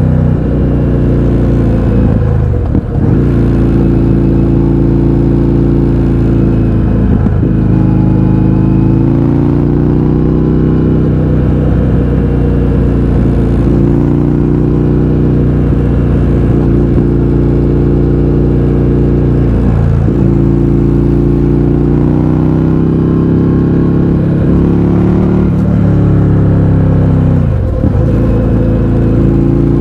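Indian FTR 1200 V-twin running loud through an Akrapovič exhaust with the baffles removed, while riding under load. Its pitch climbs steadily, then falls away briefly about five times where the revs drop between gears.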